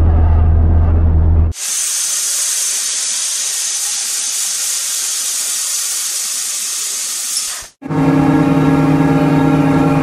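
Three machine sound effects in turn: a low steady mechanical hum that stops suddenly about a second and a half in, a long steady hiss lasting about six seconds, then a motor running with a steady pitched hum.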